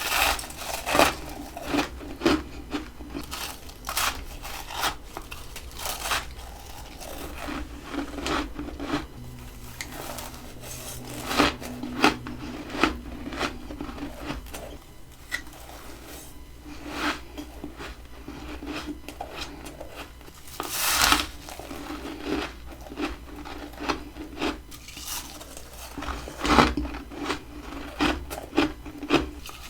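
Close biting and crunching of humidifier freezer frost. It comes as irregular crisp crunches, a few of them much louder bites.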